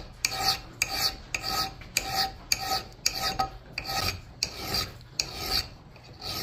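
Small hand file rasping back and forth across the steel edge of a Collens double-bit axe, about two strokes a second, each stroke with a slight ring. The bit is being sharpened and a small nick in the edge filed out.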